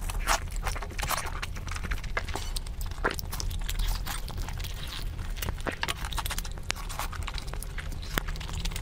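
Close-miked eating sounds, played sped up: wet chewing, lip smacking and sucking on braised pork trotters, a dense run of quick wet clicks over a low steady hum.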